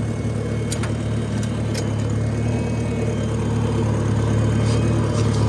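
Oliver Super 66 tractor's four-cylinder engine idling steadily, with a few faint ticks in the first couple of seconds.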